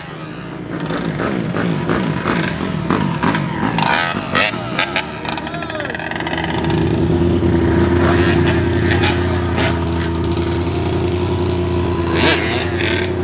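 Motorcycle engines revving, their pitch rising and falling, as riders pull wheelies. From about six seconds in, one engine holds a steady note, with voices around it.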